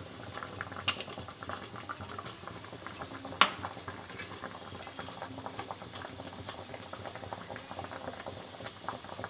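Water boiling hard in a steel kadai around a steel tiffin tin, with a steady bubbling crackle. Scattered sharp clinks and scrapes of a spoon against the steel come as semolina batter is spread in the tin for steaming.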